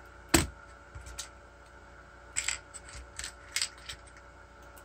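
Sharp clicks and taps of small parts being handled on a workbench: one loud tap about a third of a second in, then a few lighter clicks between two and four seconds in.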